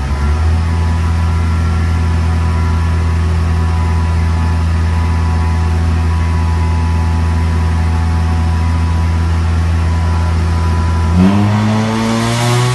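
Engine idling steadily, then revved about eleven seconds in, its pitch climbing.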